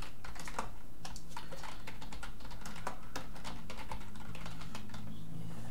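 Typing on a computer keyboard: an irregular run of keystroke clicks as a phrase is typed, over a low steady hum.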